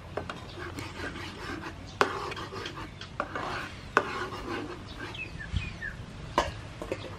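Spatula stirring and scraping sauce in a wok in uneven strokes, with sharp knocks of the spatula against the pan about two and four seconds in and again past six seconds.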